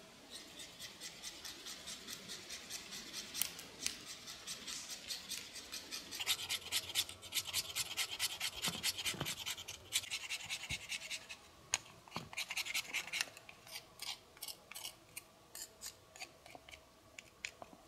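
Knife blade scraping fine shavings off a dry wooden stick held against a stone, in quick repeated strokes, about three a second: tinder being prepared for lighting a fire.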